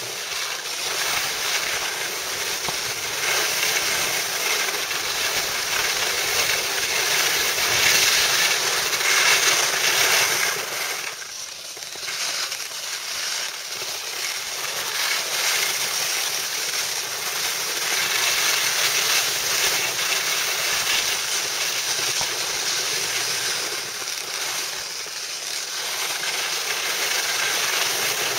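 Steady rushing hiss of skis sliding over snow, mixed with wind on the microphone, while skiing downhill. It eases briefly about eleven seconds in and again about twenty-five seconds in.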